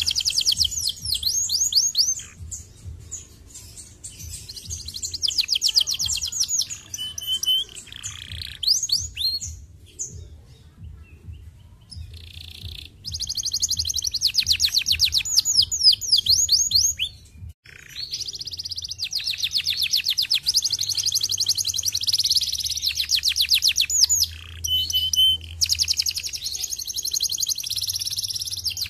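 Domestic canary singing: long, fast rolling trills of rapidly repeated high notes, broken by a couple of short pauses, with a brief steady whistled note now and then.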